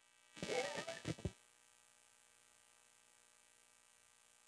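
Faint steady electrical mains hum, with a brief soft vocal sound about half a second in.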